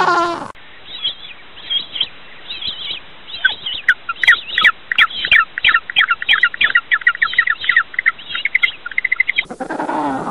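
Birds chirping and twittering in quick high-pitched calls, scattered at first and then a dense run of chirps from about three and a half seconds in.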